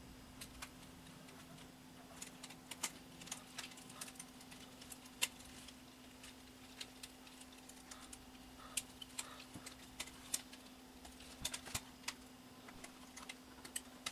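Irregular light clicks and taps from hands handling the Sony EV-C3 8mm VCR's tape-deck mechanism and its circuit board, over a faint steady hum.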